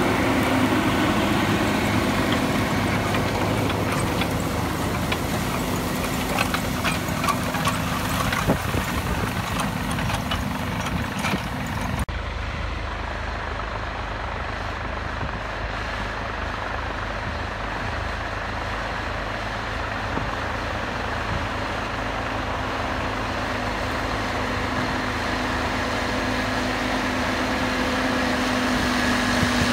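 International 7288 2+2 tractor's turbocharged six-cylinder diesel running steadily under load while pulling a plow. The sound changes abruptly about 12 seconds in, dips, then grows louder again toward the end as the tractor comes closer.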